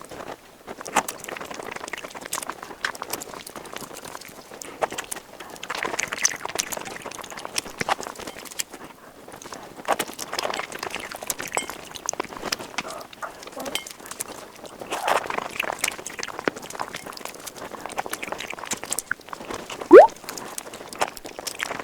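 Close-miked eating sounds: wet chewing and smacking with many small sharp clicks and stretches of noisy slurping, and one brief, loud rising squeak near the end.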